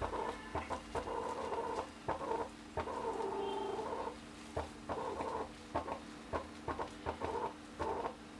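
Steel spoon pressing and spreading a soft masala filling across a dosa on a cast-iron tawa: irregular squishy smears with frequent light taps and scrapes of the spoon.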